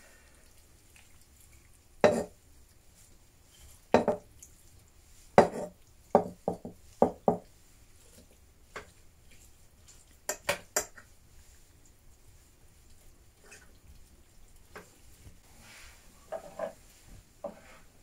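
Earthenware bowl knocking and clinking against the rim of a clay cooking pot as diced raw meat is scraped out of it into the pot: about a dozen separate knocks in the first half, three quick sharp clicks a little past the middle, then softer handling sounds near the end.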